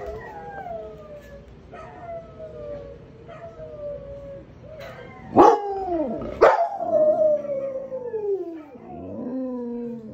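Alaskan Malamutes howling: several long howls overlap, each slowly falling in pitch. The two loudest start sharply about five and a half and six and a half seconds in.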